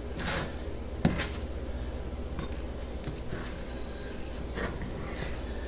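Metal spoon stirring thick mashed potatoes in a metal pot: soft scraping strokes every second or so, with one sharp knock of the spoon against the pot about a second in.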